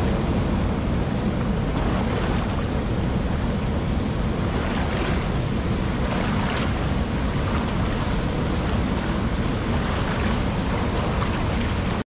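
Whitewater rapids of a mountain river rushing over boulders: a steady, loud rush of water that cuts off suddenly near the end.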